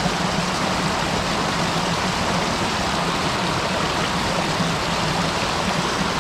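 Mountain stream rushing steadily over rocks in a small cascade close by.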